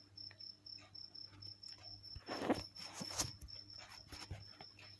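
A cricket chirping steadily in a high, even pulse, about five chirps a second. A rustle about two and a half seconds in and a sharp click a moment later come from the phone being handled.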